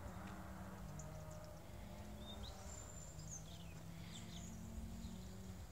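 Faint chirps and short calls of small birds over a steady low background hum.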